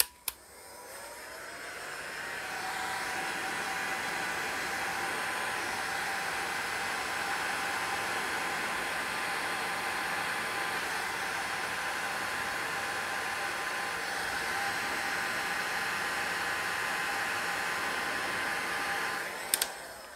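Hot-air heat gun switched on with a click, its fan winding up over the first two seconds, then blowing steadily with a faint whine. It is switched off with a click near the end. The gun is shrinking heat-shrink sleeving over a cable end.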